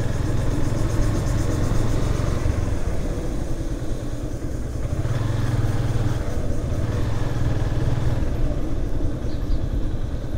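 Motorcycle engine running while riding; the engine note eases off about four seconds in and picks up again.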